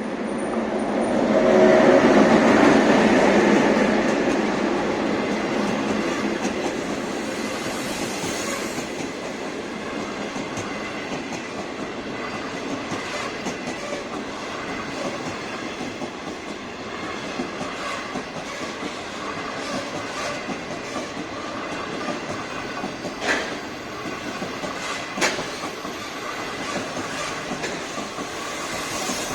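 A train on the Guangzhou–Shenzhen Railway passing close by at a level crossing, its wheels clacking over the rails. It is loudest about two seconds in, settles into a long steady rolling rumble, and gives two sharp clacks near the end.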